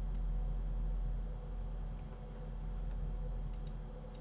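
Computer mouse clicking: one click just after the start and a quick pair of clicks about three and a half seconds in, over a low steady hum.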